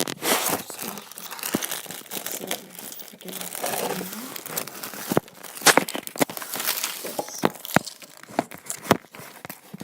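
Crinkling, rustling handling noise close to the microphone, with many sharp clicks and taps scattered through it.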